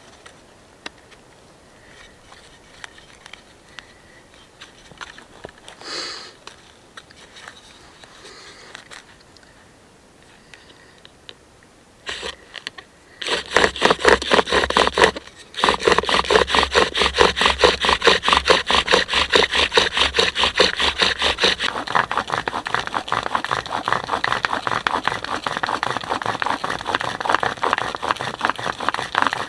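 Bow drill for friction fire-lighting: a wooden spindle spun by a cord bow, grinding in a charred hole in a wooden fireboard with rapid, even back-and-forth strokes. Before that, about 13 seconds of quiet handling as the spindle is set in place. The bowing starts sharply, stops briefly a couple of seconds later, then runs on steadily.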